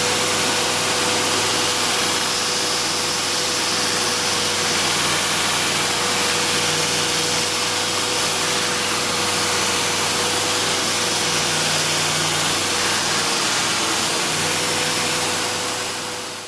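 Fireant 2x72 belt grinder running, its very worn abrasive belt grinding a bevel into a piece of 5160 spring-steel flat bar held on a wooden angle jig. A steady loud hiss of belt on steel over a steady motor hum, which briefly drops out near the end.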